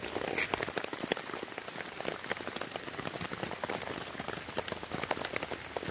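Steady rain falling, many individual drops ticking close by.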